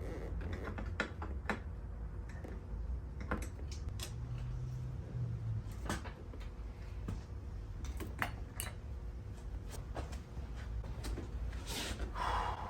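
Irregular clicks and light knocks of hand tools and fasteners being handled while motorcycle fairing parts are taken off, over a low steady hum.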